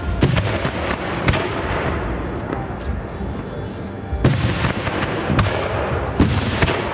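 Professional fireworks display: aerial shells and comets firing and bursting in a run of sharp bangs over a steady rumble. A cluster of bangs comes near the start, and a denser one from about four seconds in.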